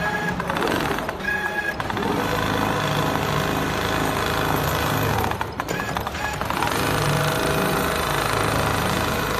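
Richpeace automatic sewing machine with a rotary head, stitching leather with a rapid, steady run of needle strokes. The run eases briefly about a second in and again about five and a half seconds in.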